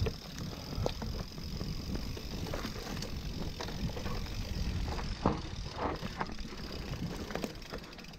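Specialized Turbo Levo SL e-mountain bike riding over a rough trail: a steady low rumble with scattered rattles and clicks from the bike, and one sharper knock about five seconds in.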